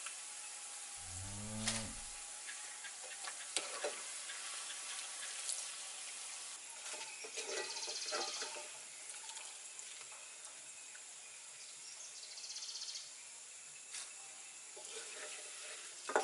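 Breadfruit slices deep-frying in hot coconut oil in a wok, a steady sizzle, with scattered light clicks and knocks as the fried slices are handled. About a second in there is a single low, drawn-out call.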